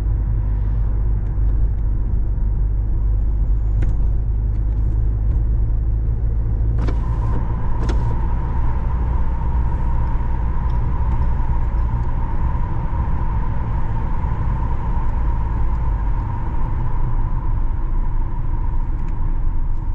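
A car driving, heard from the moving vehicle: a steady, heavy low rumble of engine and road noise. A faint steady high tone joins about seven seconds in, with a couple of brief clicks around then.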